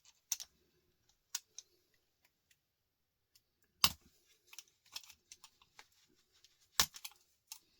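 Scattered small clicks and snaps of hand tools and plastic and metal parts as a small electronic device is taken apart for scrap. Two sharper snaps stand out, about four and about seven seconds in.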